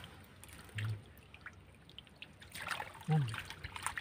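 Hands groping in shallow muddy water, with small splashes and trickling that get busier in the second half. Two brief low voice sounds come about a second in and about three seconds in.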